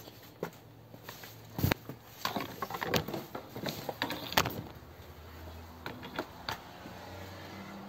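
Small pieces of fatwood handled in the fingers close to the microphone: irregular rubbing, clicks and light knocks, with two sharper knocks, one about a second and a half in and one about four seconds in.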